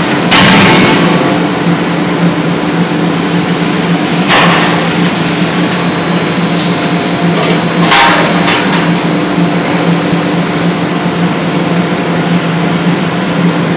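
80 kJ hydraulic forging hammer running, with a steady machine hum under it. The ram strikes three times, about four seconds apart.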